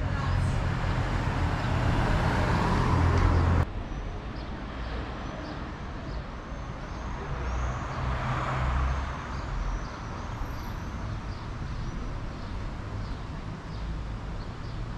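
Bernina Express train running along the track, a steady rolling rumble that drops abruptly to a quieter level about three and a half seconds in.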